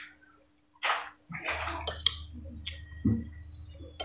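A metal spoon clinking and scraping against a plate of rice and vegetable soup, about half a dozen short strokes. A low steady hum comes in about a second in.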